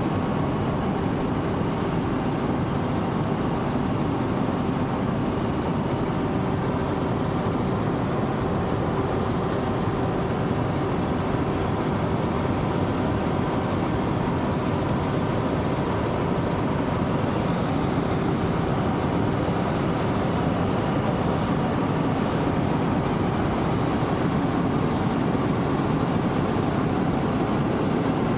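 Tour helicopter in flight: the steady drone of its turbine engine and rotor, with a faint constant hum, unchanging throughout.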